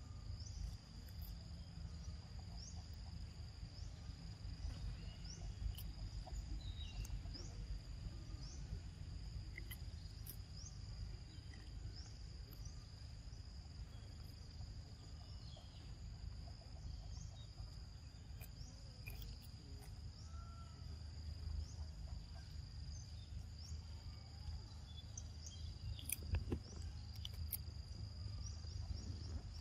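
Steady high-pitched insect drone, with short chirps repeating over it and a low rumble underneath; a few sharp clicks come near the end.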